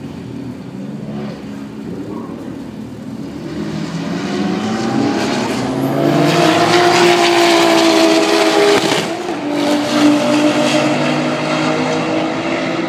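Two cars in a roll race accelerating at full throttle down the front straight. They grow louder as they approach and pass, their engine note climbing in pitch, then dropping about nine seconds in.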